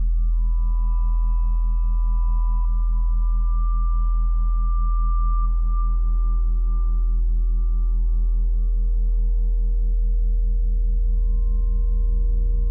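Electronic ambient sound backing: a deep steady drone under a low tone that pulses rapidly and evenly, with long, pure held tones above that fade and give way to new, lower held tones about eight and ten seconds in.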